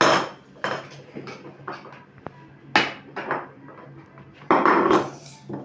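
Kitchen knife knocking and clinking against a plate while a banana is sliced: a string of irregular sharp knocks, with a longer, louder clatter about four and a half seconds in. A faint steady hum runs underneath.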